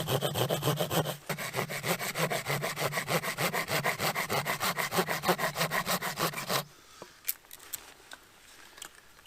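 Wood being sawn by hand with quick, even back-and-forth strokes. There is a short break about a second in, and the sawing stops suddenly about two-thirds of the way through, leaving a few faint clicks.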